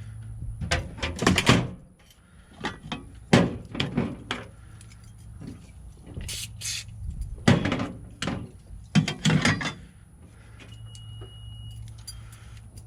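Clicks and clunks from a door lock being worked on by hand, coming in several short rattling clusters a second or two apart.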